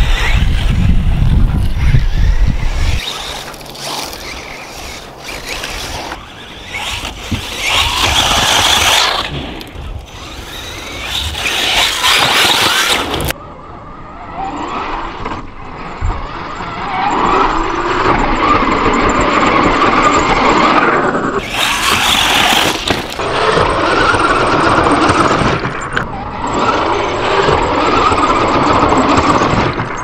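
Radio-controlled off-road cars driven on a dirt track, their motors whining high and rising and falling with the throttle. A low rumble comes in the first few seconds.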